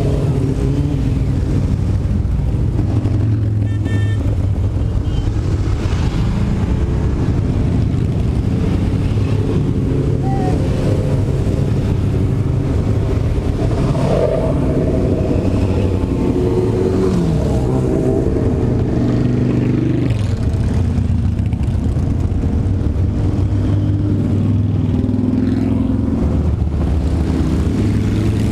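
A procession of motorcycles, sport bikes and cruisers, riding past one after another close by, a continuous mix of engines whose pitch rises and falls as individual bikes go by and rev.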